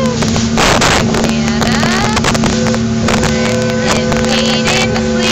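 Pontoon boat's motor running steadily under way, a constant hum, with wind buffeting the microphone in gusts and water rushing past the hull.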